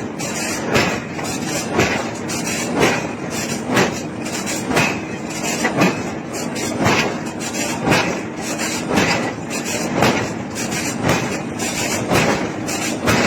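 Heavy hammer blows forging iron, evenly spaced at about one strike a second, over a steady machine hum.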